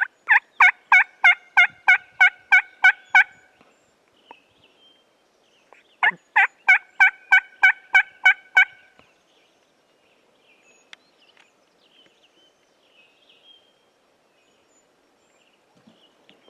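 Turkey yelps: two runs of about ten evenly spaced, loud yelps, roughly three a second, the second run starting about six seconds in, followed by faint chirping.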